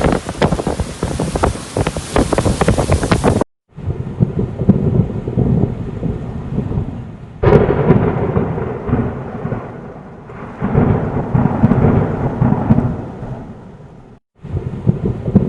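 Thunderstorm: heavy rain with many sharp hits on a surface, then, after an abrupt cut about three and a half seconds in, deep rumbling thunder that swells suddenly twice and fades away each time. There is another abrupt cut near the end.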